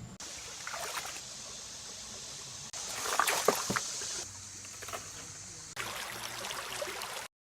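Water running and sloshing, with a few sharp clicks bunched together in the middle. The sound changes abruptly several times and cuts off suddenly near the end.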